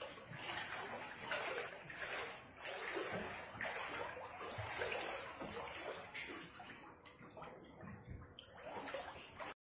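Catfish thrashing in shallow muddy floodwater, an irregular run of splashing and sloshing that cuts off suddenly near the end.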